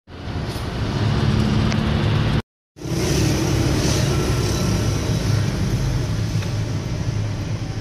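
Car engine and road noise heard from inside the cabin while driving, with a steady low hum. The sound drops out briefly about two and a half seconds in, then carries on.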